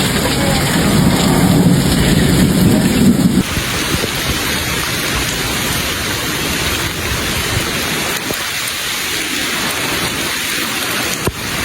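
Heavy rain pouring down and hitting the ground hard. A low rumble runs under it for the first few seconds and stops abruptly, and then the rain goes on alone.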